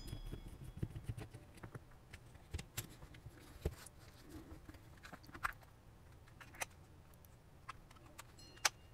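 Faint, scattered clicks and taps of plastic as the opened casing of a Huawei Mobile WiFi Pro 2 pocket router is handled and pried at with a plastic pry tool, with a sharper click near the end.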